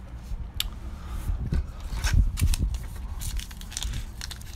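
Packs of 1989 Upper Deck baseball cards and the cards themselves being handled: irregular rustling, crinkling and tearing with scattered short clicks.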